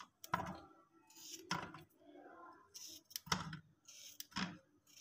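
Fleshy aloe vera leaves being cut into pieces: several sharp, crisp cuts, roughly one a second.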